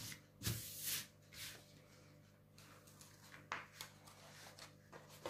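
Brief rustle of a plastic-covered diamond painting canvas being handled, about half a second in, then faint handling taps and ticks.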